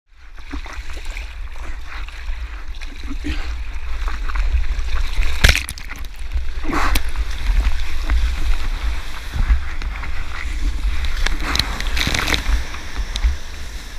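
Water splashing and sloshing over the nose of a surfboard moving through small waves, heard close up from a camera mounted on the board. A steady low rumble runs underneath, with louder splashes about five and a half and seven seconds in and again near the end.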